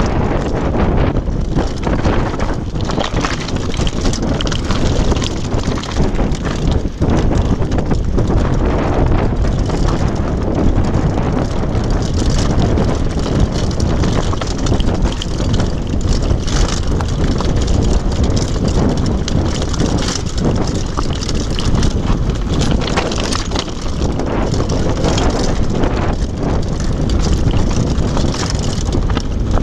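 Downhill mountain bike clattering over a loose rocky trail: a constant rattle of knocks as the tyres, suspension and chain hit stones. Wind buffets the microphone throughout.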